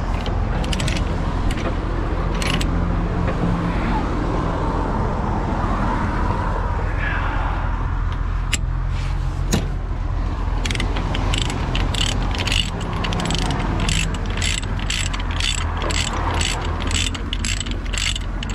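Heavy truck's engine running with a steady low drone. In the second half, a fast run of sharp mechanical clicks, about three a second, comes over it.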